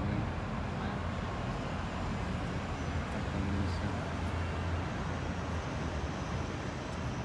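City street traffic noise: a steady wash of vehicles with a low engine hum that is strongest in the middle.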